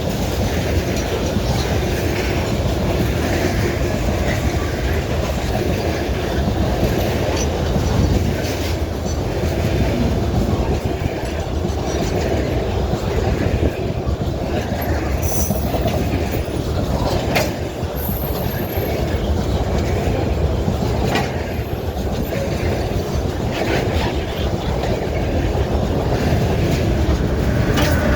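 Train rolling past, its wagons rumbling steadily over the track with the clickety-clack of wheels over rail joints, and brief high-pitched wheel squeals about halfway through.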